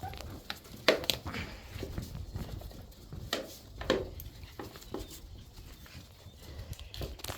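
Shiba Inu puppies playing: irregular knocks and scuffles of small paws moving about, a few louder thumps among them.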